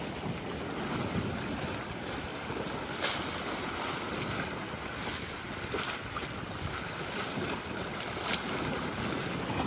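Sea waves washing against the boulders of a rocky breakwater, with wind buffeting the microphone; a few faint clicks come through about three, six and eight seconds in.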